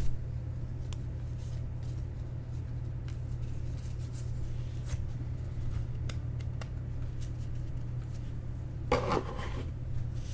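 Steady low electrical hum with sparse faint clicks and a brief rustle about nine seconds in, from baseball trading cards being handled and flipped through.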